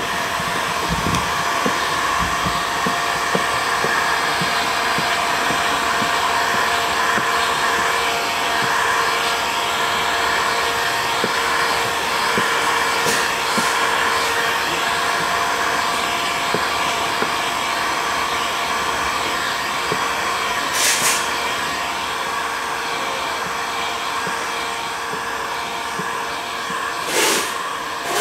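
Electric heat gun blowing steadily, a fan whine over a rush of air, used to heat-shrink window tint film so the flat film conforms to the curved glass. Two short, sharp hissing sounds break in during the second half.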